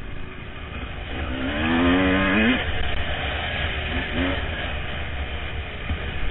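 Honda CR250 two-stroke dirt bike engine running on the trail, revving up with a rising pitch between about one and a half and two and a half seconds in, then a shorter rev about four seconds in.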